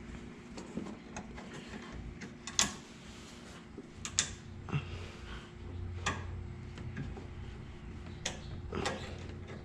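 Scattered sharp clicks and knocks of pliers and a spring hose clamp being worked along a radiator hose, about eight in all, over a faint steady hum.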